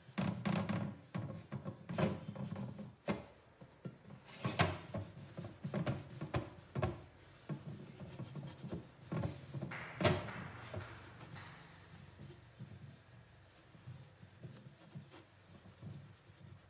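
A sponge scrubbing a soapy red pot in irregular rubbing strokes, with a few sharper scrapes standing out; the strokes grow quieter in the second half.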